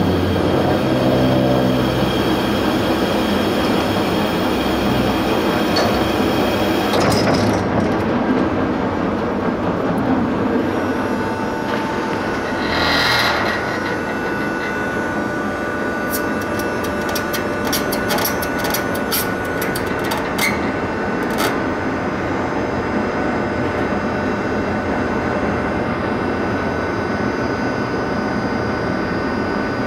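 Car ferry's engines and deck machinery running steadily on the open car deck during departure, with a rising tone in the first couple of seconds. A short hiss comes about 13 seconds in, and a run of metallic clicks and rattles follows over the next several seconds.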